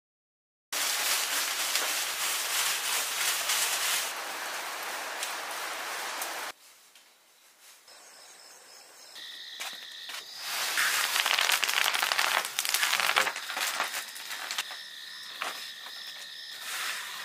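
Fresh tea leaves rustling and crackling on a large bamboo tray as they are shaken and tossed. After the leaves stop, night insects trill steadily, with a second spell of louder leaf rustling over them about two-thirds of the way through.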